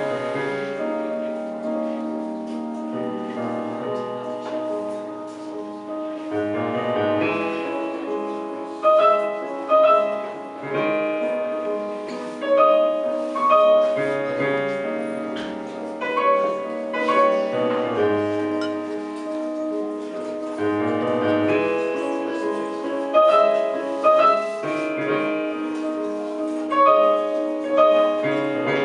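Piano sound played on a Korg electronic keyboard: a slow melodic piece of held chords with a higher melody line above, with more strongly struck notes from about a third of the way in.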